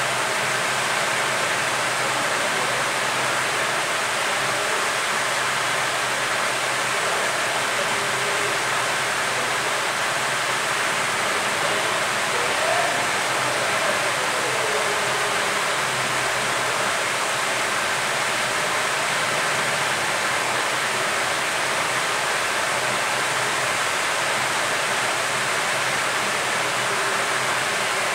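Hot air rework station's handpiece blowing steadily, an even airy hiss that does not change, while it heats a phone motherboard's metal shield to melt the solder and lift it off.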